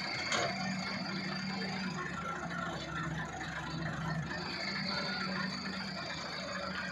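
Diesel engines of a wheeled excavator and a Massey Ferguson 375 tractor running steadily at a dirt-loading site. A steady high whine comes and goes over the engine drone, and there is a single click about a third of a second in.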